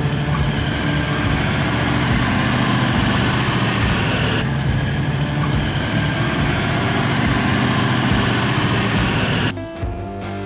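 Four-wheel-drive ute driving on a dirt bush track: its engine runs steadily under a heavy wash of tyre and wind noise. The sound shifts a little less than halfway through, and music takes over near the end.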